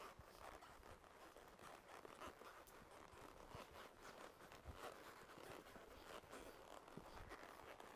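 Faint, irregular rustling and crunching from a horse walking a trail under its rider.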